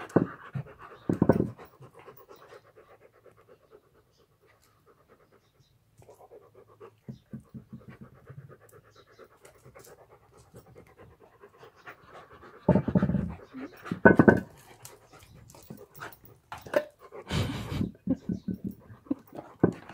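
Dogs panting rapidly close to the microphone, tired out from play. There are several louder short bursts of noise in the second half.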